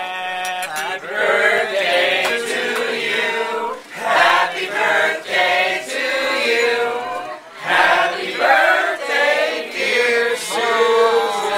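A group of people singing together in chorus, a birthday song for the guest of honour, in several phrases with short breaks between them.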